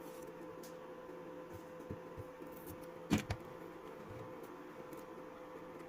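Quiet handling of a drill battery pack while insulation paper is stuck on: a few faint taps and one sharper click about three seconds in, over a steady electrical hum.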